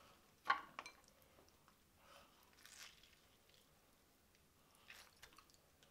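Faint eating sounds: chewing and wet handling of sauce-coated crab meat, with a few scattered soft clicks, the sharpest about half a second in.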